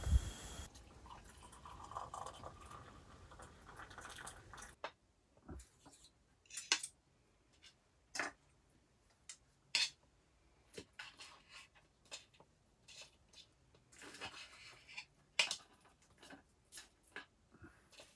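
Knives and forks clinking and scraping against plates as two people cut food and eat, with short, sharp clinks at irregular intervals of about a second.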